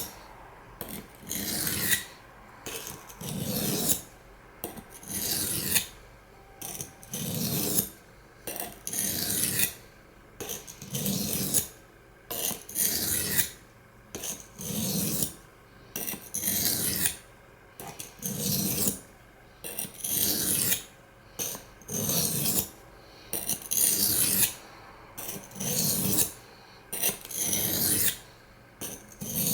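Steel knife blade being drawn across a water stone in repeated sharpening strokes, about one a second, each a gritty rasping scrape with a short pause between.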